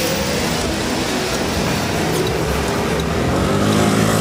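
Street traffic noise with a vehicle passing. Steel drum music starts near the end.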